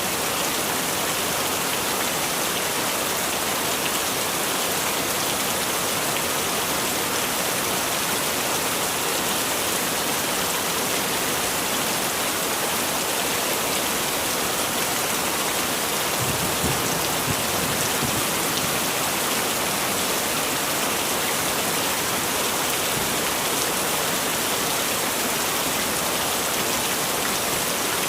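Heavy rain falling steadily, a dense even hiss of drops on surfaces. About two-thirds of the way through, a brief low rumble swells under it.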